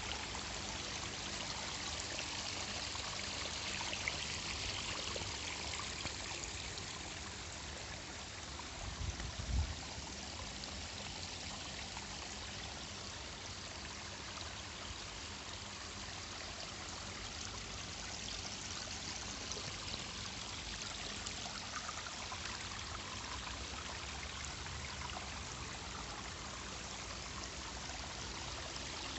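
Water from an artificial garden waterfall pouring and trickling steadily into its pool, with a brief low thump about nine seconds in.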